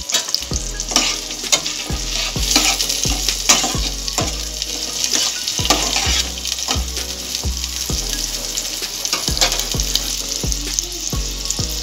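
Sliced onions and green chillies sizzling in hot mustard oil in a kadai, with a steady hiss. A spatula stirs them, knocking and scraping against the pan about twice a second.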